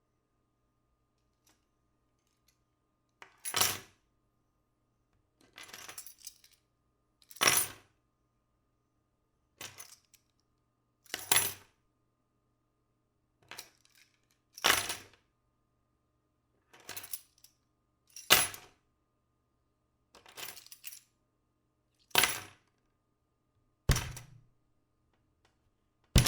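Metal spoons and forks dropped onto a table one after another, about a dozen times at roughly two-second intervals. Each drop is a short clatter with a bright metallic ring, and louder and softer drops alternate.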